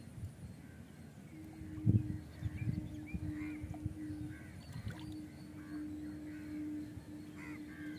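Birds calling repeatedly around the lake over a steady low hum, with a dull low thump about two seconds in.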